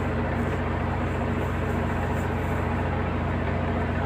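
Ship's diesel generator set running steadily at constant speed: an even, low engine hum with no change in pitch.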